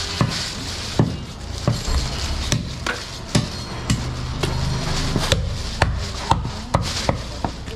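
A heavy butcher's knife knocking again and again on a round wooden chopping block as goat meat and ribs are cut, about one to two knocks a second. Some strikes ring briefly from the blade.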